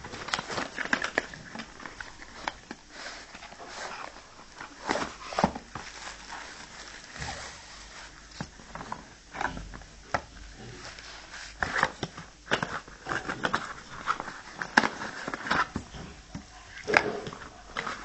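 Irregular rustling, clicks and light knocks of packaging and a small device being handled during unboxing.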